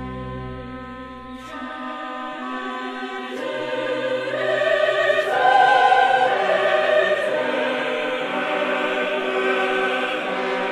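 Choral music: sustained low organ chords, then a choir enters and swells, loudest about six seconds in, holding long chords over the organ.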